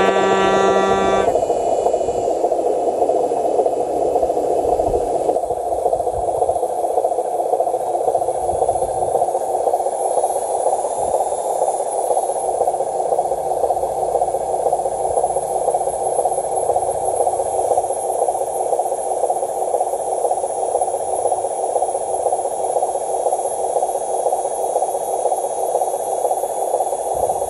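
Radio-controlled semi-truck model running across dirt, a steady buzzy drone from its motor and drivetrain. A single beep of about a second sounds right at the start.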